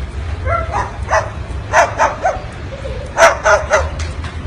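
Short, yipping animal calls, about ten in quick clusters, over a steady low hum.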